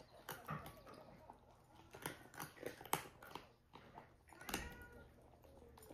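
A cat eating from a ceramic bowl: irregular crunching chews and small clicks, the sharpest about three seconds in and another cluster about a second and a half later.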